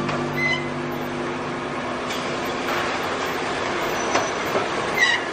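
Truck assembly-line machinery: a steady mechanical din with a few sharp clanks and a short high squeal near the end.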